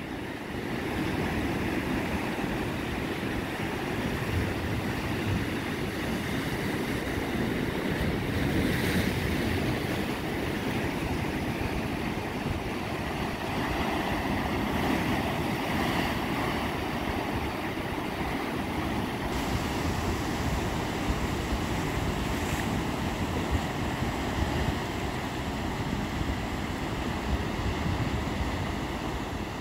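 Surf breaking and washing in over rocks: a steady rush of waves, with wind rumbling on the microphone.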